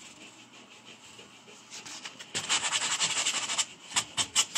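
Hand rubbing over a freshly textured drywall patch. A scratchy scrubbing starts about halfway through, then turns into quick back-and-forth strokes, about four a second, near the end.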